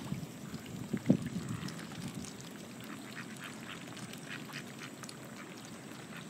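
Mallard ducks feeding, with soft low quacking and the clicking of bills dabbling in the water, and a brief louder low sound about a second in.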